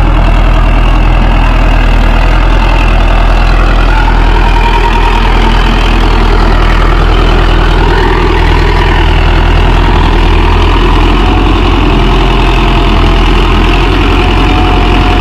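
Mahindra Yuvo Tech+ 585 DI 4WD tractor's four-cylinder diesel engine running steadily under load while it pulls a five-tine cultivator through ploughed soil.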